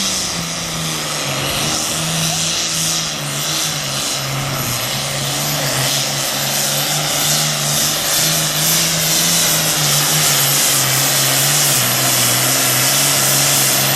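Super Farm class pulling tractor's turbocharged diesel engine running flat out under load as it drags the sled, a loud steady drone whose pitch sags slowly as the run goes on.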